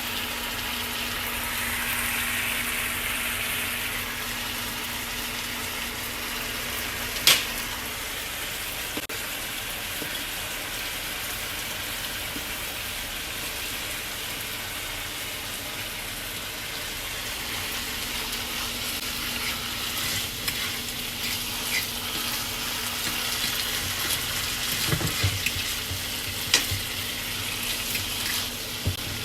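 Ground beef frying in butter in a pan, sizzling steadily, with a sharp knock of a utensil against the pan about seven seconds in and a few smaller clicks and knocks near the end as it is stirred.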